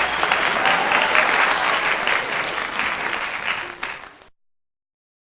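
Applause from many people, dense and steady, which cuts off abruptly about four seconds in, leaving dead silence.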